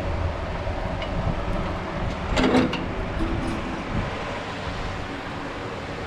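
Wood fire burning in a barrel wood stove with its door open: a steady low rushing noise, broken by a short metallic clank about two and a half seconds in.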